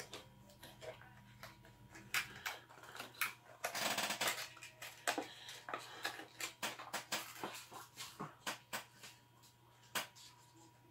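Faint, irregular clicks and crinkles of hands handling a soft-plastic frog fishing lure, with a denser rustle about four seconds in.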